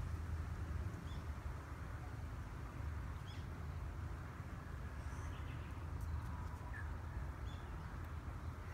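A few short, faint bird chirps, roughly every two seconds, over a steady low outdoor rumble.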